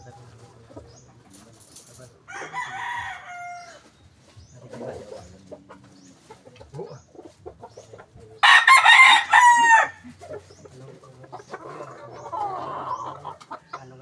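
Roosters crowing: one crow about two seconds in, then a much louder crow about eight and a half seconds in that lasts over a second.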